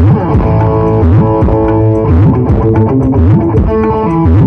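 Music played loud through a large outdoor sound system's subwoofer stacks and speaker towers during a sound check, with held notes over deep bass notes that slide down and up again and again.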